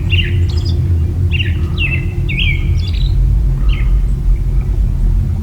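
A series of short, high chirping bird calls, each with a quick downward slur, coming in an irregular run and thinning out after about four seconds, over a steady low rumble.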